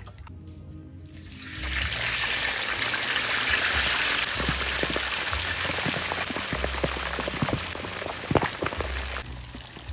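Pig's head deep-frying in hot oil in a large wok: a loud, steady sizzle and crackle that starts about a second in, with a few sharp pops near the end.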